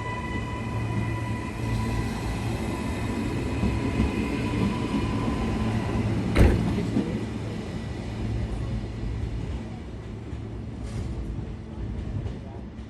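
Electric suburban train running, heard from inside the carriage: a steady hum with a high whine that fades out about halfway through, then a single sharp, loud knock, followed by quieter running.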